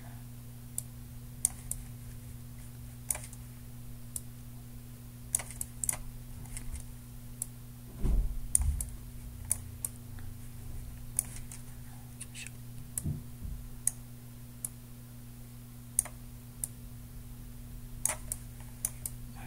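Scattered, irregular clicks from a computer mouse and keyboard, sometimes in small clusters, over a steady low hum. A dull low thump comes about eight seconds in.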